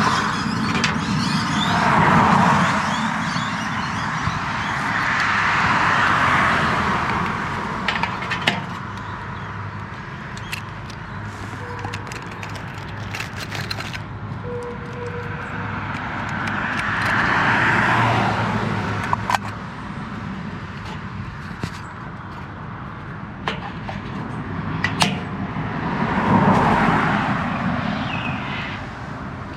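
Cars passing by on a road, four in turn, each swelling and fading away, with a few sharp clicks in between.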